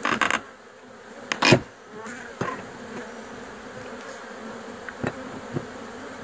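Honey bees buzzing steadily around a colony exposed in a house wall with its siding pried off, with a few short sharp knocks, the loudest about a second and a half in.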